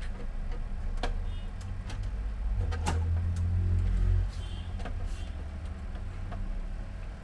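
Scattered sharp clicks and taps of small plastic printer parts being handled while the scanner-belt pulley and its spring are fitted, over a steady low hum that grows louder for about a second and a half in the middle.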